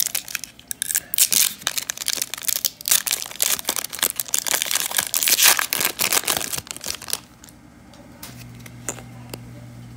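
Foil wrapper of an Upper Deck hockey card pack being torn open and crinkled by hand: a dense run of crackles and rips that stops about seven seconds in. A low steady hum sets in near the end.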